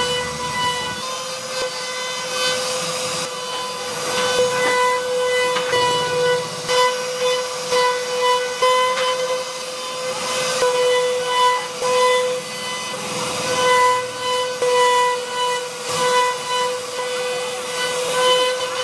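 CNC router spindle whining at a steady high pitch as its bit carves a relief pattern into a solid wood panel, with the rasp of the cut swelling and fading as the bit moves through the wood.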